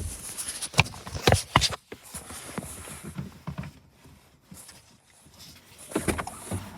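A few irregular sharp knocks and clicks in the first two seconds, then quieter, with another short cluster of knocks near the end.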